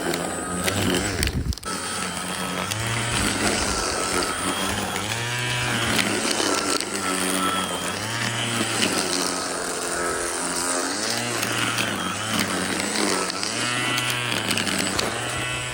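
Ryobi 18-volt cordless string trimmer, mounted on a wheeled mower deck, running. Its motor pitch swings up and down repeatedly as the load changes.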